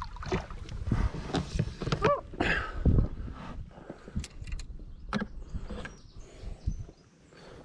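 Irregular knocks, rubbing and clicks of fishing gear being handled in an inflatable boat, with a brief squeak about two seconds in.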